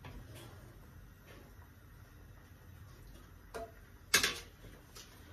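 Wooden spatula stirring fusilli in a cream sauce in a frying pan, with light scrapes and ticks against the pan. A sharper knock on the pan comes about four seconds in.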